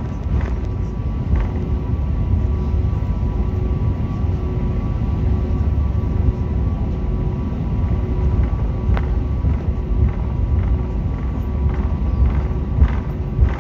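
Cabin noise of an Airbus A320-family airliner taxiing: a steady low rumble from the idling jet engines and the rolling undercarriage, with a faint steady hum and a few light knocks.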